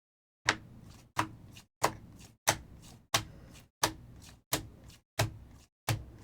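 Sharp clicks repeating at an even pace, about three every two seconds, each trailing off in a brief hiss.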